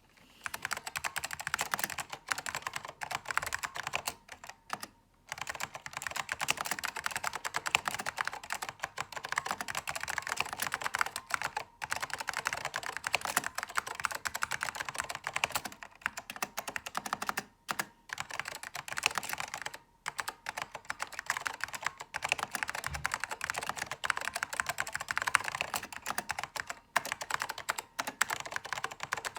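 Fast, continuous typing on an Apple Standard Keyboard M0116 with Alps orange mechanical switches, a dense run of light, fairly high-pitched key clacks with a metallic ping as keys are released. The typing breaks off briefly a few times.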